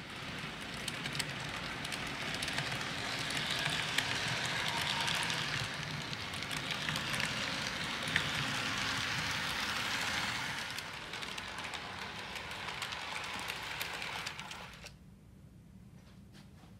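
HO scale model train running along the track close by: a steady whirring rattle of wheels and motor with a few sharp clicks, loudest in the middle as it passes and cutting off about fifteen seconds in.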